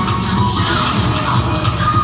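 Hip hop dance music played loud over a sports hall's sound system, with a steady bass beat.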